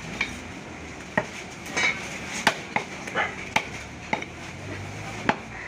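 A butcher cutting beef with a knife, making irregular sharp knocks and clinks of the blade against meat, bone and the chopping block, about nine strikes in under six seconds.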